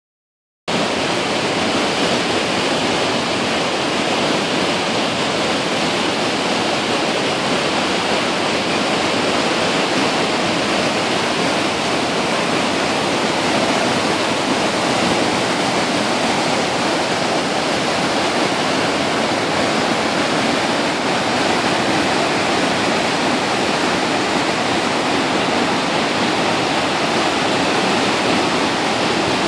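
Class 6 whitewater river rapids rushing steadily, a loud even noise of churning water that starts suddenly about half a second in.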